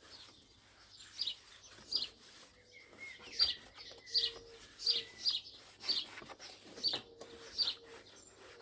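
A small bird chirping repeatedly, short high chirps about once a second, over a quiet background.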